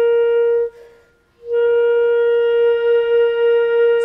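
Clarinets holding one long steady note in unison. The note breaks off under a second in and, after a short gap, comes back at the same pitch about a second and a half in and holds.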